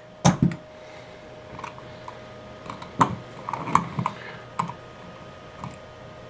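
Hand handling a Lionel O-gauge model locomotive tender on a cloth-covered table: a knock just after the start as it is set down, then a scatter of light clicks and taps.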